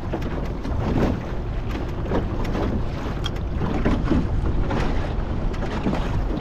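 Choppy water slapping against the hull of a small aluminium dinghy, with wind buffeting the microphone in a steady low rumble.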